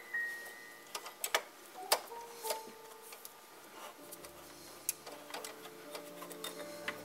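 Irregular light clicks and taps from hands working the metal parts of a Teac A-4010GSL reel-to-reel tape deck while the drive belt is fitted onto the flywheel, over soft background music.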